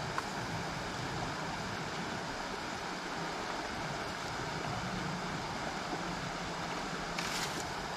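Creek water rushing steadily, with a brief rustle near the end.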